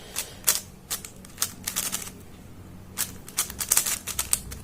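YJ Yuhu V2M megaminx being turned quickly during a solve: an irregular run of sharp plastic clicks and clacks, some single and some in quick clusters.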